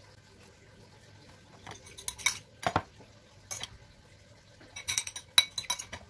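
Metal spoon clinking and scraping against a ceramic bowl while scooping out tofu filling. The first two seconds are quiet, then come a cluster of sharp clinks, a single one, and a quick flurry near the end.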